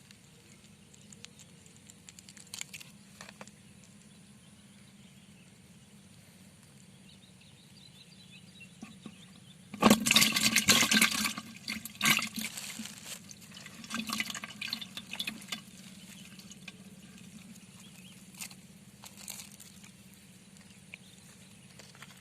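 Water splashing in a loud burst about halfway through, followed by a few weaker splashes, over a quiet background.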